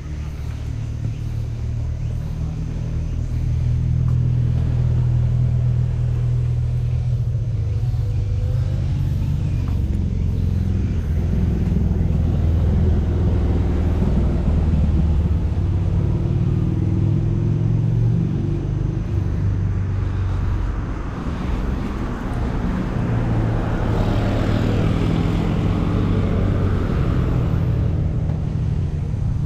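A motor vehicle's engine running steadily while driving, with a low drone that shifts a little in pitch, and more road or wind noise from about two-thirds of the way in.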